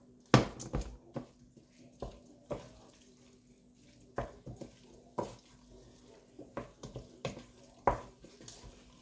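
Wooden spoon stirring pasta in a stainless steel pot, with irregular knocks and scrapes of the spoon against the pot every second or so, over a faint steady hum.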